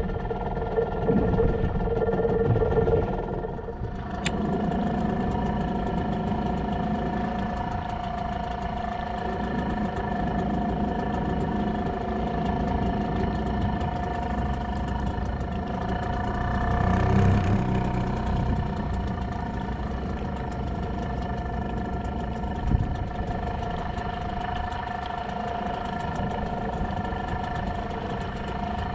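Small fishing boat's engine running steadily at low revs, a constant hum of several even tones. The hum swells briefly about 17 s in, and there is a single knock near 23 s.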